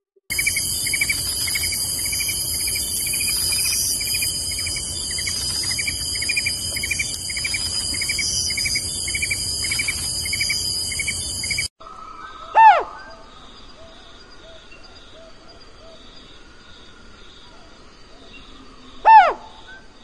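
For the first half, a steady high insect chorus with a chirp pulsing about twice a second. Then two loud single hoots, each falling in pitch, about six seconds apart, from a Sunda scops owl.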